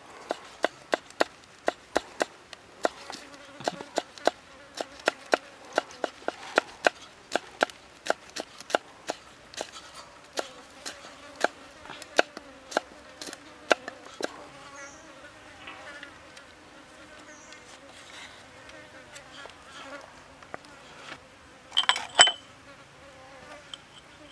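Chef's knife chopping garlic and red chilies on a wooden chopping block, about two to three strokes a second, stopping about two-thirds of the way through. Insects buzz steadily in the background, and near the end there is a short clink of small ceramic cups.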